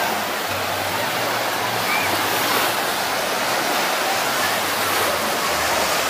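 Steady rush of running, splashing water, unchanging in level.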